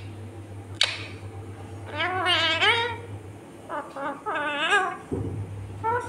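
Indian ringneck parakeet calling in two short spells of warbling, wavering-pitched chatter, about two seconds in and again about four seconds in. A single sharp tap comes just under a second in.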